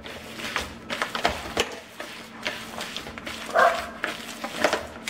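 Bare hands squishing and kneading a wet mixture of raw ground chicken, egg whites and oats in a bowl: irregular wet squelches, with one short, louder sound about three and a half seconds in.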